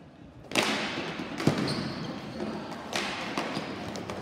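Ball hockey play: hard knocks of sticks and ball on the rink, over a rush of noise that comes in suddenly about half a second in. Two sharp knocks stand out, about a second and two and a half seconds in.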